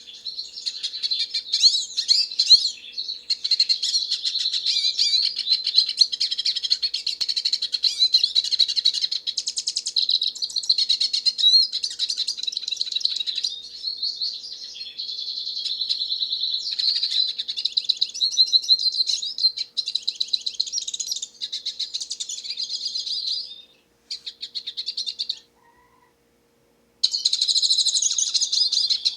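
Hooded siskin singing a long, fast twittering song of high chirps and trills. It breaks off briefly near the end, then starts again.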